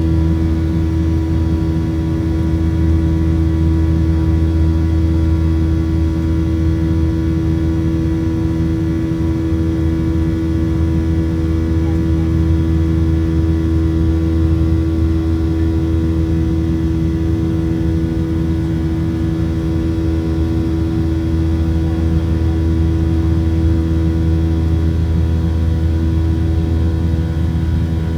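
Aircraft in steady flight: a constant engine drone at an unchanging low pitch, with several steady higher tones above it.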